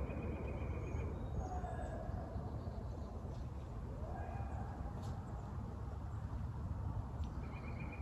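Hunting hounds baying in the distance: a few long, drawn-out bays that slide up and down in pitch, over a steady low rumble, with some short high chirps.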